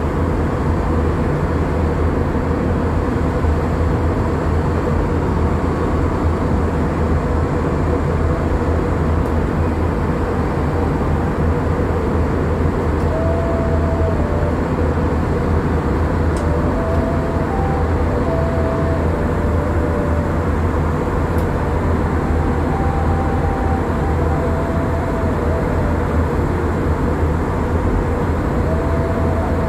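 Steady, loud cabin noise inside an Airbus A321-211 jet airliner in flight, a constant low hum from its CFM56 engines and the airflow past the fuselage.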